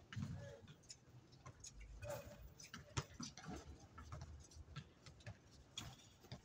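Faint, scattered thuds and clicks of a basketball game on an outdoor hard court: the ball bouncing and players' shoes on the surface, with one sharper knock about three seconds in.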